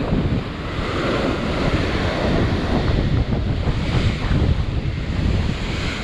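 Heavy ocean surf breaking and washing over a rock ledge, steady and loud, with wind buffeting the microphone.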